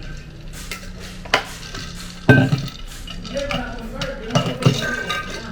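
Clatter of dishes and cutlery on a table, with a few sharp knocks; the loudest comes a little past two seconds in, and two more come close together near the end.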